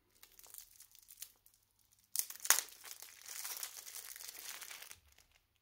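Plastic packaging crinkling and rustling as it is handled, with scattered light crackles, one sharp louder crackle about two and a half seconds in, then a couple of seconds of dense crinkling.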